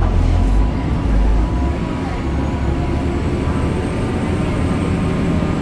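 BredaMenarini Avancity Plus city bus running, its Deutz diesel engine and ZF gearbox giving a heavy rumble with a steady whine above it.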